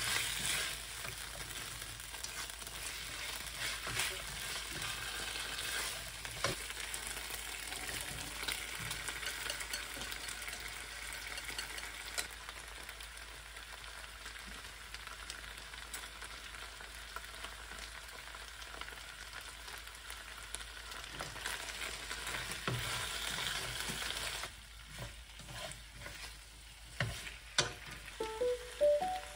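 Sliced pork and cabbage stir-frying in a nonstick pan: a steady sizzle with the stirring of chopsticks through the food. About 24 seconds in the sizzle drops away, leaving a few sharp knocks of the chopsticks against the pan.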